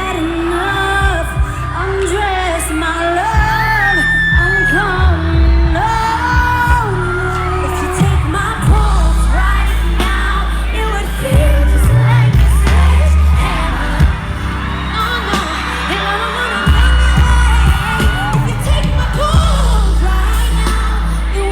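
Live pop music played loud through a concert sound system: female vocals singing over heavy bass beats, with the crowd audible beneath.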